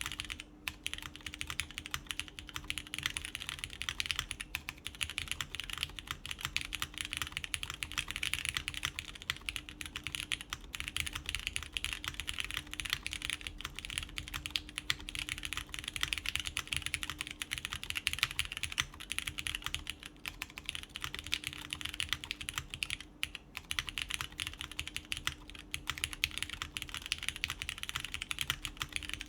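Continuous fast typing on a custom mechanical keyboard with lubed Cherry MX Brown tactile switches, a polycarbonate plate and GMK doubleshot ABS keycaps: a dense stream of soft, muted key clacks with brief pauses now and then.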